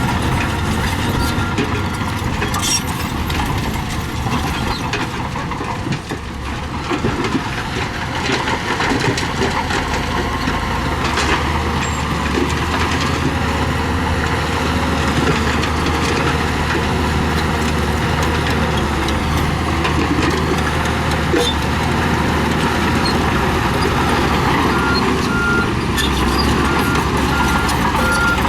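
Heavy diesel earthmoving machinery running steadily under load, with a reversal alarm beeping in an even series at the very start and again over the last few seconds.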